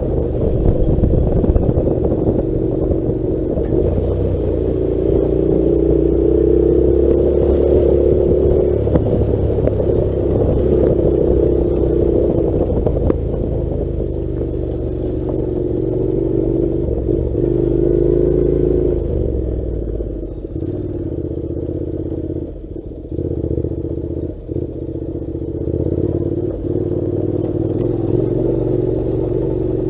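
Honda NC700's 670 cc parallel-twin engine running under way on a rough gravel dirt road, its pitch rising and falling with the throttle. Gravel and loose parts clatter under the tyres. About two-thirds of the way through the engine drops back and a few sharp knocks come through from the rough track.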